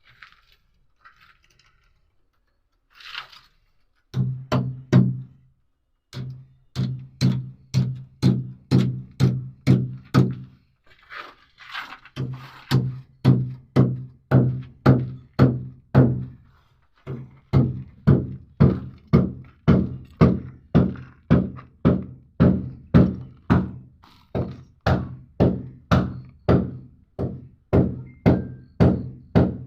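A long run of heavy, rhythmic thuds, about three a second, each with a short low ring, broken by brief pauses every few seconds.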